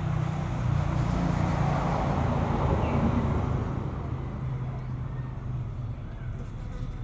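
Road traffic: a motor vehicle going past, its noise swelling about two seconds in and fading away over a steady low rumble.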